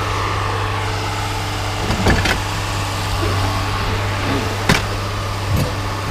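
A vehicle engine idling steadily, with a few sharp knocks about two, four and a half and five and a half seconds in.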